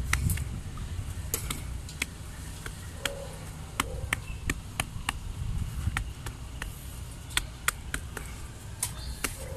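Irregular sharp clicks and taps, about one or two a second, as a concrete ecoblock is pressed and shifted by hand onto its mortar bed, with a low rumble underneath.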